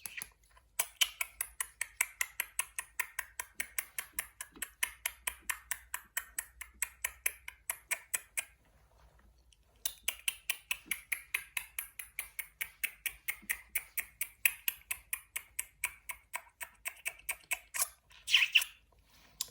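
Rapid, even clicking, about five clicks a second, in two long runs with a short break in the middle.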